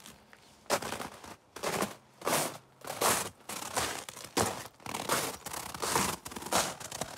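Footsteps crunching in deep, crisp snow at a steady walking pace, about a step and a half a second, starting just under a second in.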